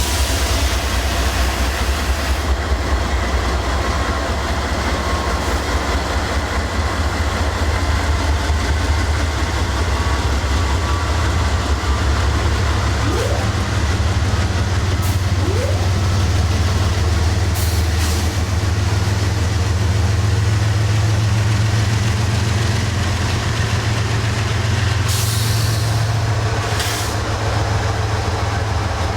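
Diesel locomotive of a CSX freight train running with a steady low rumble while shoving cars back, with a couple of short bursts of hiss near the end.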